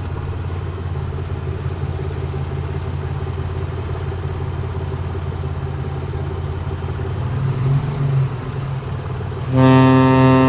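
A motor vehicle engine running steadily with a low hum. Near the end a loud horn starts blaring and holds.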